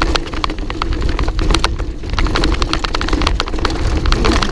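Mountain bike rattling down a rough dirt trail: a dense, irregular clatter of clicks and knocks as it runs over the bumps, over a steady low rumble.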